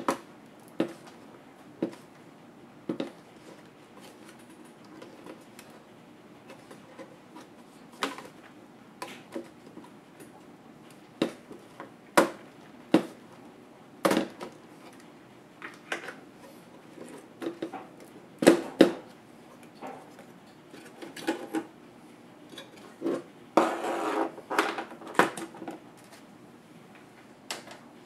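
Small screwdriver and screws working on a laptop's motherboard and plastic base: scattered sharp clicks and taps about a second apart. Near the end comes a denser run of rattling clatter.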